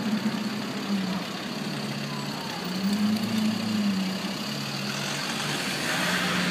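Lamborghini Aventador's V12 engine running at low revs as the car creeps along, its note wavering and lifting slightly about three seconds in. A hissing rush grows in over the last second or two.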